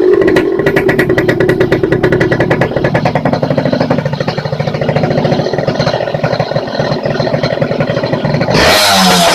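Yamaha YZ80's single-cylinder two-stroke engine idling steadily through a homemade silencer, then revved up briefly near the end.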